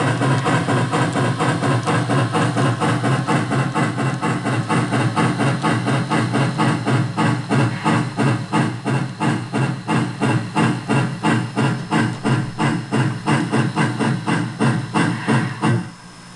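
Digital sound decoder (Soundtraxx Micro Tsunami) playing the steam exhaust of an articulated AC-12 steam locomotive: a steady run of hissing chuffs that slows to about two or three beats a second, then cuts off suddenly near the end.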